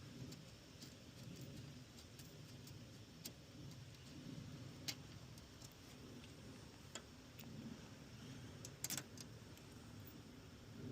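Faint handling of car wiring: a few light, sharp clicks, one near the end a quick double, over a low background rumble.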